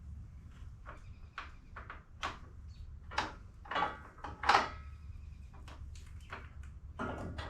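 Irregular knocks and clanks of metal parts and tools being handled during car suspension work, the loudest about four and a half seconds in, over a low steady hum.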